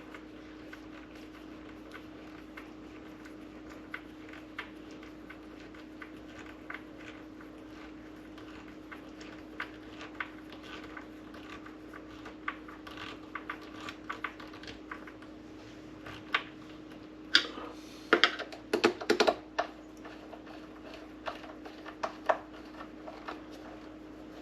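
Light, irregular clicks and ticks of screws being driven by hand with a screwdriver into a coffee machine's plastic bottom cover. A cluster of louder clicks comes about two-thirds of the way through, over a faint steady hum.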